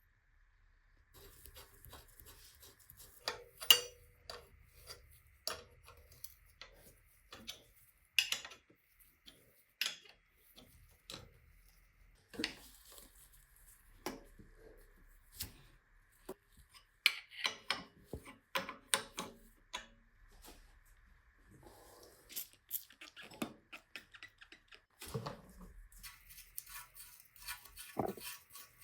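Irregular clicks, taps and light metallic clinks of hand tools and small bicycle parts being handled, with a couple of duller knocks near the end.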